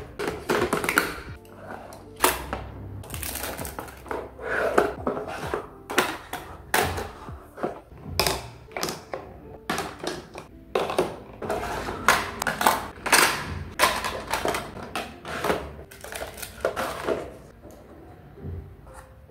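Cosmetics clicking and knocking as they are set down into the compartments of a plastic makeup organizer: many irregular taps of plastic and glass on plastic, thinning out near the end, with soft music underneath.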